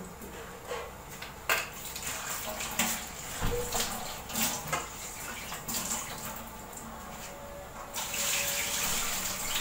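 Water coming to the boil in a large aluminium pot on a gas stove: a steady hiss with irregular small bubbling pops, growing louder near the end.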